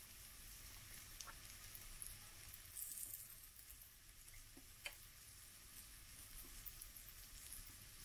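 Pancake batter frying in hot fat in a pan: a faint sizzle with a few scattered small pops and crackles.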